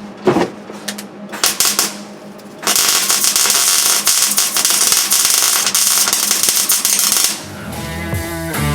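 Welder tacking a steel patch panel into a car floor: after a few light clicks, about four and a half seconds of dense, steady crackling from the arc, which cuts off suddenly. Background music with drums starts near the end.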